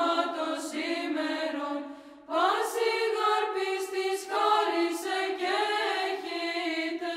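Orthodox church chant sung on long, held notes, breaking off briefly about two seconds in before the next phrase.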